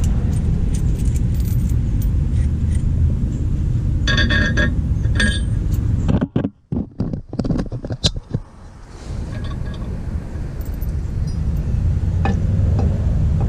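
Metal hardware and hand tools clinking and ringing during work on the truck's suspension brackets, with a cluster of clinks about four to five seconds in, over a steady low rumble that drops out briefly around the middle.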